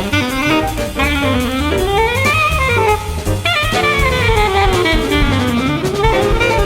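Jazz recording: a soprano saxophone plays quick runs that climb and fall over and over, over piano and a drum kit.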